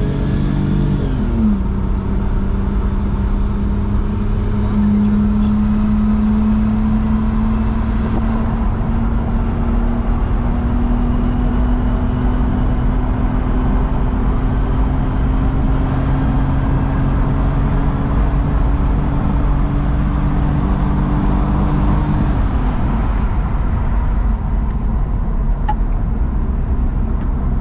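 Supercharged Toyota Altezza's 1G-FE inline-six pulling on the road, heard from inside the cabin. Its note drops about a second in, climbs slowly for some twenty seconds, then drops away about 22 seconds in, leaving tyre and road noise.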